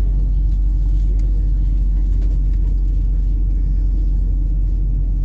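Steady low rumble of a city bus heard from inside the passenger cabin: engine and running noise carried through the floor and body.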